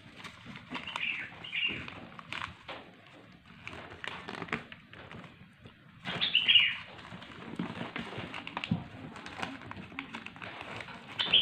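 Sheet of paper being creased and rustled by hand while folding a paper airplane, in irregular crinkles and taps, with a few short, high, falling chirping sounds about a second in, around the middle and at the end.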